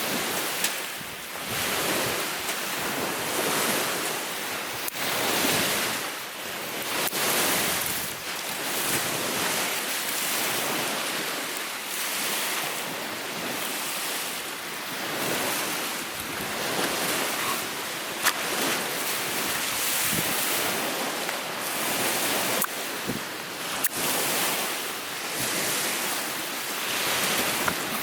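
Strong wind gusting over the microphone and lake waves washing ashore, swelling and ebbing every second or two, with a few sharp cracks in between.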